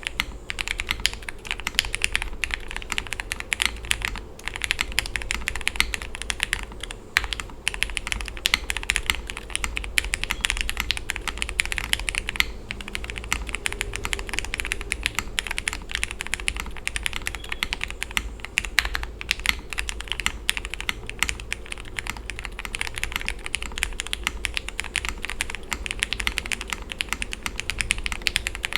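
Continuous typing on a Tiger Lite mechanical keyboard with lubed Cherry MX Black linear switches, a gasket-mounted polycarbonate plate with plate foam, and GMK keycaps: a rapid, steady stream of keystrokes.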